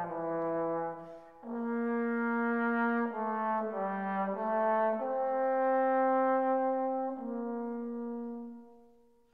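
Slow brass music of held notes that change every second or so, the last chord fading out near the end.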